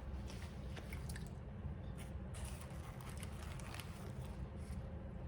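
A person chewing food close to the microphone, with soft, irregular clicks from the mouth.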